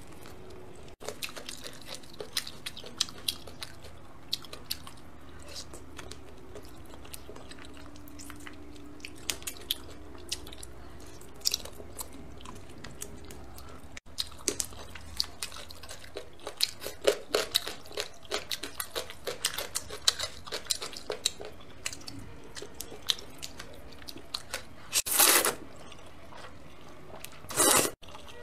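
Close-miked chewing and eating of rice noodles in spicy broth: a run of wet mouth clicks and smacks, with two louder slurps about three seconds apart near the end.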